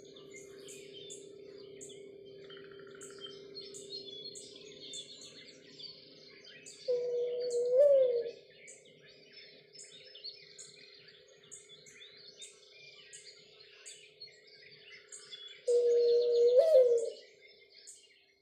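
Mourning dove cooing: a low note that holds, then swings up and falls away, given twice, about nine seconds apart. Small songbirds chirp high and fast between the coos.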